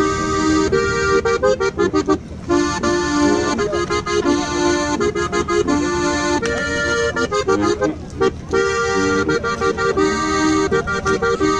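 Accordion music: a lively traditional dance tune with a steady beat and changing chords.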